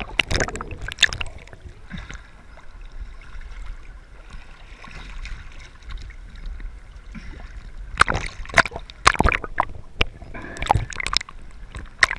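Sea water splashing and sloshing against a waterproof camera held at the surface as it dips under and comes back up, with muffled gurgling while submerged. Sharp splashes come about a second in, again around eight to nine seconds, and near the end.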